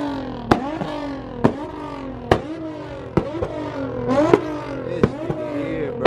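Car engine revved hard over and over, about once a second, the pitch climbing and dropping each time with a sharp crack at each peak.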